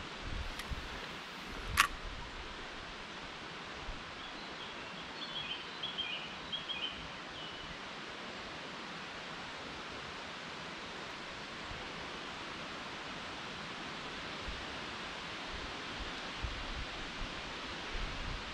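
River water running steadily, with a small bird chirping a few times from about four to seven seconds in and one sharp click about two seconds in.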